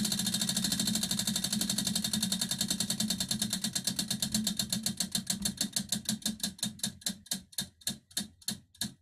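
Prize wheel spinning, its rim pegs clicking rapidly against the pointer flapper. The clicks slow steadily as the wheel coasts down, spreading to a few a second near the end.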